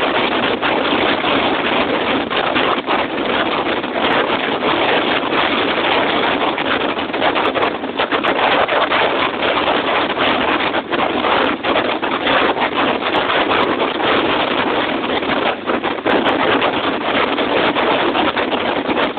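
Steady rush of wind buffeting the microphone, mixed with water hissing past the hull and wake, aboard a Sunseeker Predator 62 motor yacht running at speed.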